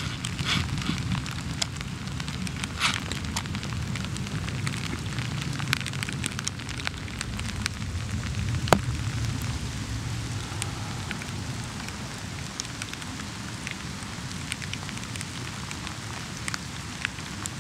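Rain falling on meadow grass: a steady hiss scattered with many sharp ticks of drops landing close by, over a low rumble, with one louder tick about nine seconds in.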